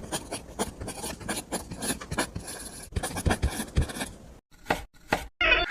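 A small hand tool scraping and rubbing on a hard, gritty surface in quick repeated strokes, thinning to a few separate strokes near the end. A burst of applause starts right at the end.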